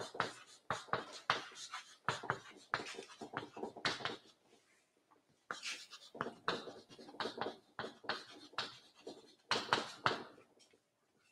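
Chalk writing on a chalkboard: quick runs of short scratches and taps as words are written, with a pause of about a second roughly four seconds in.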